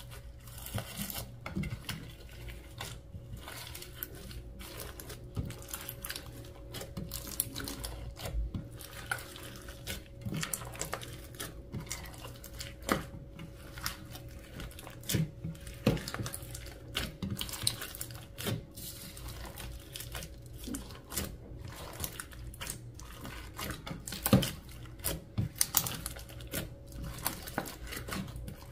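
Slime being squeezed, stretched and pressed by hand, making irregular sticky clicks, crackles and small air-bubble pops.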